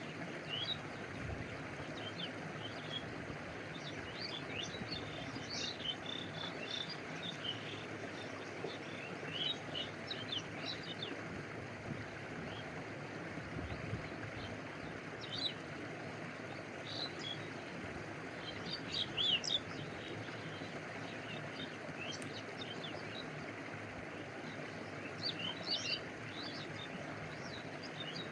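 Stream water flowing and lapping as a steady rush, with small birds chirping in short high bursts on and off throughout, in clusters around 5, 10, 15, 19 and 25 seconds in.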